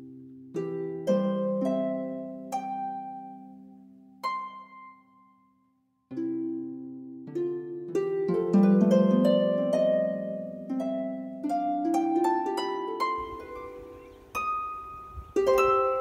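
Background music of plucked strings: single notes and chords that ring and fade, stopping briefly about six seconds in before picking up again.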